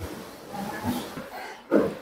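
A man chewing a mouthful of fried duck, with wet, close-up chewing and mouth noises picked up by a clip-on microphone. There is a short, louder mouth sound near the end.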